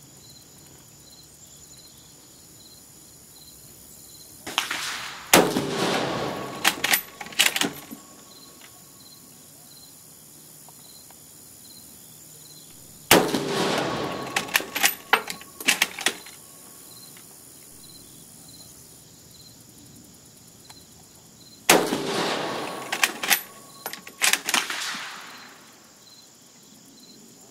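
Three rifle shots from a German Gewehr 1888 Commission bolt-action rifle in 8mm Mauser, about eight seconds apart, each echoing briefly and followed by a few sharp metallic clicks as the bolt is worked to chamber the next round.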